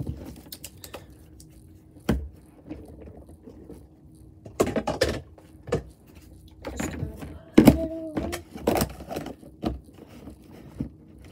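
Scattered knocks, bumps and rustling from things being handled close to the microphone, loudest in a few clusters past the middle, over a faint steady hum.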